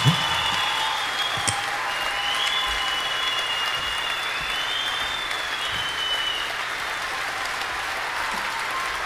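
Audience applauding at the end of a song, with long high whistles held over the clapping for the first several seconds and a single thump right at the start.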